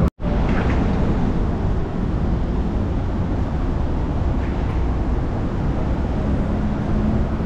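Steady road traffic noise from a busy multi-lane city road, an even hum with most of the sound low down.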